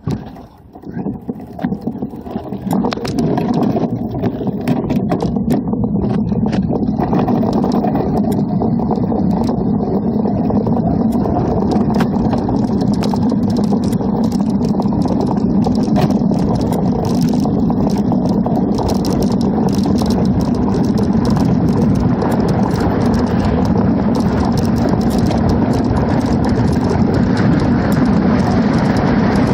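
Rushing wind on a handlebar-mounted microphone and rolling tyre noise from a 1968 Schwinn Stingray bicycle, building over the first few seconds as the bike picks up speed, then a loud, steady rush. There are scattered clicks and rattles at the start.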